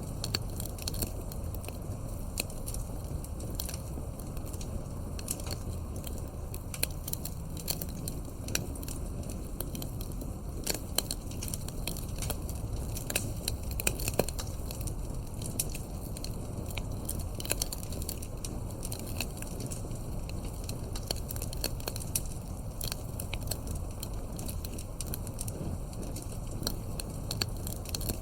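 Wood fire crackling: irregular sharp pops and snaps over a low steady rumble of burning logs, with a few louder pops about halfway through.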